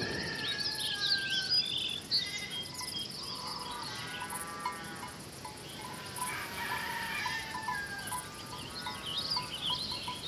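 Farmyard ambience: many small birds chirping and twittering over a steady, fast, high insect trill like crickets.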